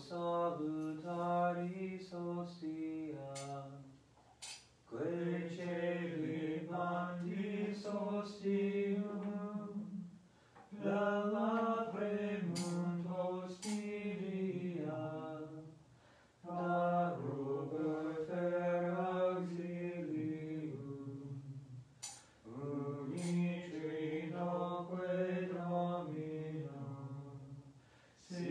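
Men singing a slow hymn, in sung phrases of about five seconds with short pauses for breath between them.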